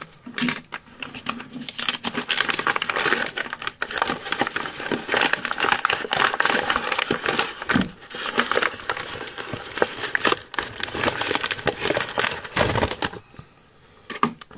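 Paper shipping envelope being handled and torn open by hand: a long run of crinkling and tearing paper, which drops away about a second before the end.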